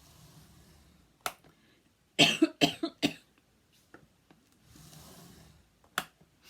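A person coughing several times in quick succession, with a single sharp click about a second before the coughs and another near the end.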